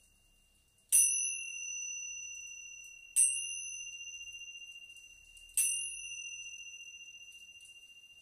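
Tingsha cymbals struck together three times, about two seconds apart. Each strike gives a bright, high ring that fades slowly, and the last is still ringing near the end.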